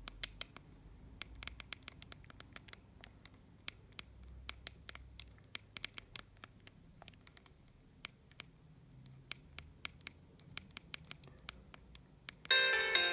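Many sharp, irregular clicks of a Mobiwire Sakari mobile phone's buttons being pressed, at times several a second, as its menus are stepped through. Half a second before the end a ringtone melody starts playing loudly from the phone's speaker.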